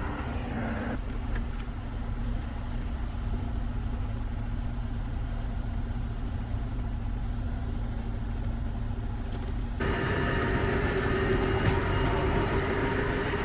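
Tractor engine running steadily. About ten seconds in, the sound turns abruptly louder and brighter, with a steady whine added.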